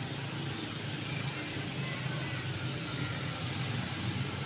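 Street traffic: motorcycles riding past over a steady low engine hum.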